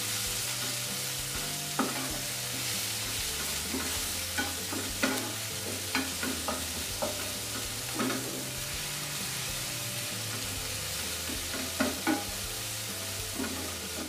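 Ground spice paste sizzling as it fries in a little oil in a pan, with the irregular knocks and scrapes of a wooden spatula stirring it. It is being sautéed until fragrant and cooked through.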